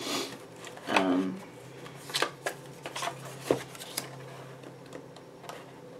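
Stiff paper journaling cards being flipped through and slid against a plastic storage tray, giving a series of sharp clicks and taps.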